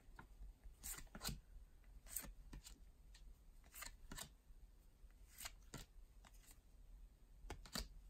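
Topps baseball cards being flipped through one at a time, each card slid off the front of the stack and tucked behind with soft paper swishes, mostly in pairs about every second and a half.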